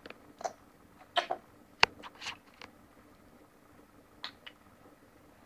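A handful of short taps and smacks, the sharpest about two seconds in, from a baby's hand patting and sweeping at food on a plastic high-chair tray while she eats.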